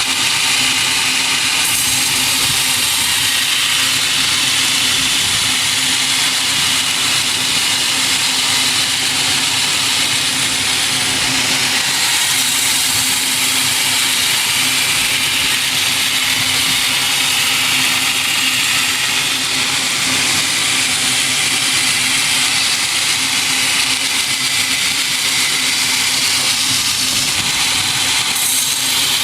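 Sawmill machinery running steadily: a constant hum under a loud, high hissing noise.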